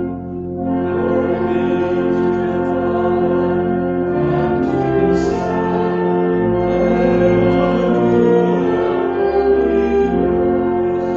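Church organ accompanying congregational singing of a hymn or chant, with sustained chords and a bass line that changes note every second or two.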